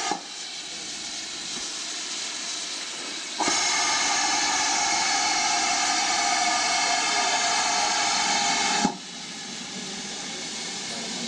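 Steam hissing steadily from GWR 2-6-2T tank locomotive No. 4160 standing in steam. About three seconds in, a much louder, steady rush of escaping steam starts, lasts about five seconds and cuts off suddenly.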